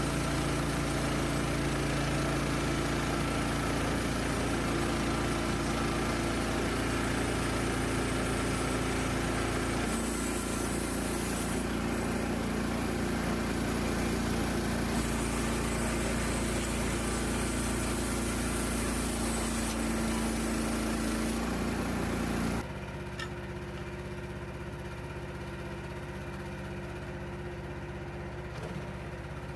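Portable band sawmill's gasoline engine running steadily. Its tone shifts about a third of the way in, and about three quarters through the sound drops suddenly to a quieter, duller steady run.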